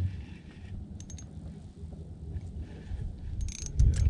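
Spinning reel on an ice-fishing rod, ticking and clicking in short bursts about a second in and again near the end, while a hooked fish is played. A low rumble of wind on the microphone runs underneath.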